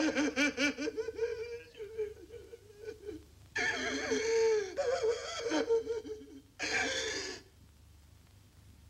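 A person's high voice making breathy, rapidly pulsing non-speech sounds in three stretches, then falling quiet near the end.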